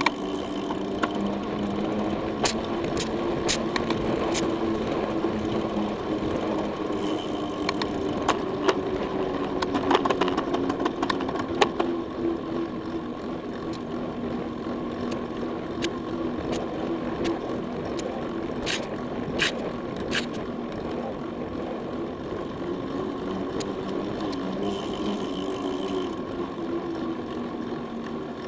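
Mountain bike rolling along an asphalt path: a steady hum from the knobby tyres on the pavement with wind rush, and sharp clicks and rattles from the bike over bumps, scattered through, most of them in the first half.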